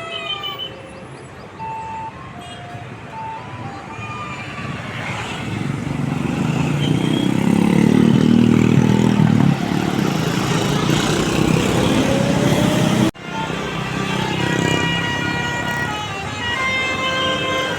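Tour bus passing close by, its engine noise swelling to a peak about halfway through and falling away. After a sudden cut, a bus's basuri musical horn plays a quick run of held notes at several pitches.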